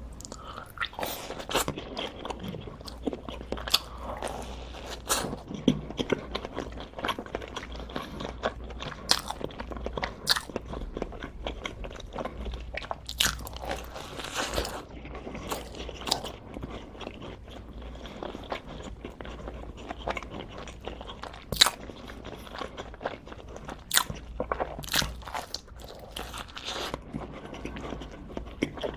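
A person biting and chewing crunchy food, with irregular sharp crunches throughout.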